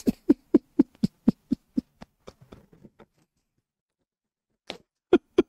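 A man laughing hard in quick, even bursts of about four a second. The laughter fades out about three seconds in, and after a short silence it starts again near the end.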